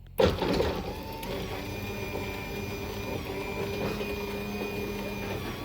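Genie belt-drive garage door opener starting with a sudden knock, then running the door with a steady mechanical whir and hum.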